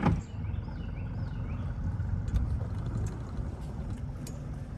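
A flats boat's outboard motor running slowly: a steady low rumble.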